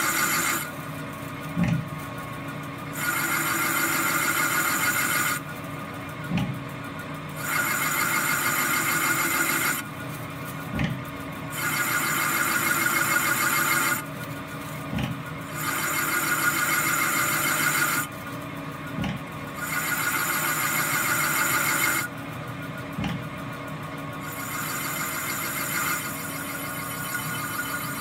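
Lathe boring out a BMW N54 turbocharger's cast-aluminium compressor housing. High-pitched cutting comes in stretches of about two seconds, about every four seconds, as the tool makes repeated passes, with a short knock in each pause between them.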